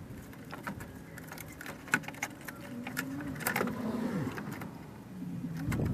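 Scattered light plastic clicks and knocks as the electric cooling fan shroud is worked into its slots on the radiator, with a low wavering tone in the second half.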